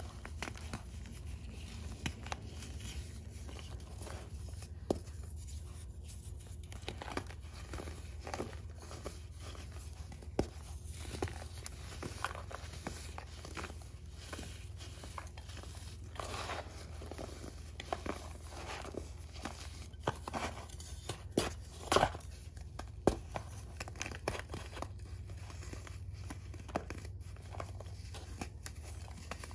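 Pink reformed chalk crumbled and squeezed between the fingers: a steady run of irregular soft crunches and powdery crackles, with a few sharper, louder crunches about two-thirds of the way through.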